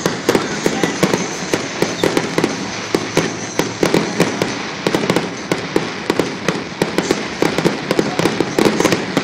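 Fireworks display: a rapid, dense barrage of aerial shells bursting, several sharp bangs a second over a continuous crackling rumble.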